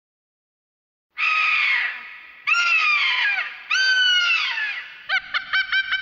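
Pterodactyl call sound effect: after a second of silence, three drawn-out calls, each about a second long and falling in pitch. Near the end, a fast stutter of short calls at one steady pitch, about six a second.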